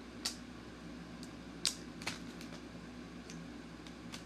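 A few light, sharp clicks and taps from handling a folded paper instruction sheet, over a steady low room hum. The sharpest click is about a second and a half in.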